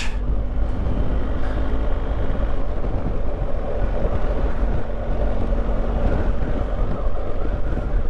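Motorcycle riding at steady speed: the engine runs evenly under a continuous rush of wind on the microphone, heaviest in the low rumble.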